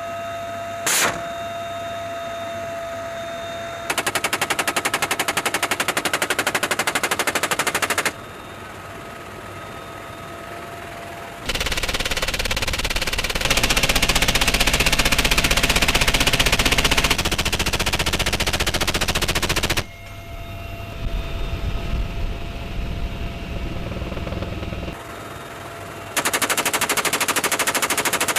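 Gatling-type rotary-barrel machine gun firing long continuous bursts at a very high rate. A burst of about four seconds comes early, a longer and louder stretch with heavy low rumble follows from about the middle of the first half, and a shorter burst comes near the end. A steady faint whine runs underneath between bursts.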